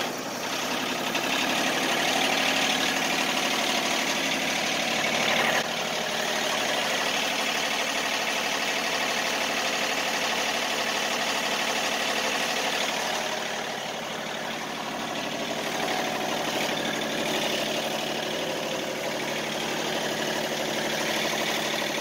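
Wood-Mizer LT50 Wide sawmill engine running steadily, just started cold on a frosty morning. It is run to warm the mill and thaw its frozen lines.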